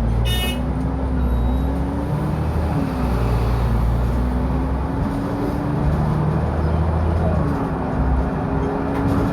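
A short buzzing stop bell on a Leyland bus sounds once, about half a second in, over the bus's engine running steadily with a whine that rises and falls in pitch.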